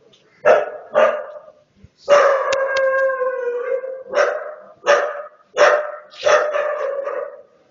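Dog barking at a person: two quick barks, then one long drawn-out bark lasting about two seconds, then four more barks, the last one longer.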